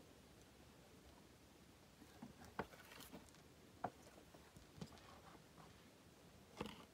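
Faint handling of a cardboard box with a clear plastic window. After about two seconds of near quiet come a few scattered light taps and scrapes, with a small cluster near the end.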